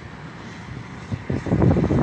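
Rain falling in a steady hiss, then, a little over a second in, wind gusting across the phone's microphone in loud, ragged low rumbles.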